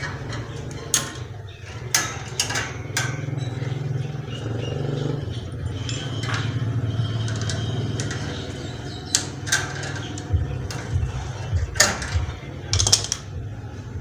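Sharp metal clicks and taps of pliers working on the copper pipe fittings at a refrigerator compressor, in two clusters, over a steady low machine hum.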